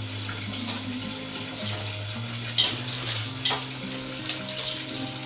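Wrapping paper rustling and crinkling as it is pulled off a wrapped picture frame, with two sharp tearing rips about two and a half and three and a half seconds in.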